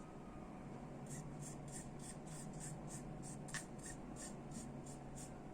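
Light, quick scratching strokes made by hand on a small object, about three a second, starting about a second in, with one sharp click about three and a half seconds in.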